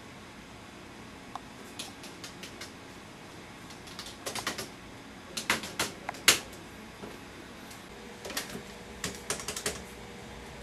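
Computer keyboard being typed on: short bursts of clicking keystrokes with pauses between them.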